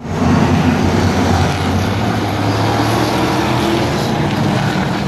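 A pack of short-track race trucks' engines running at speed around the oval, a loud steady drone that starts abruptly.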